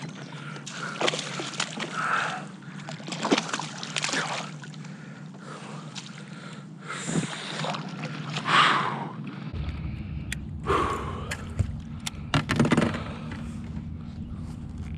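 Water splashing and sloshing beside a kayak, with scattered knocks and rustles of handling, over a steady low hum; a low rumble comes in about ten seconds in.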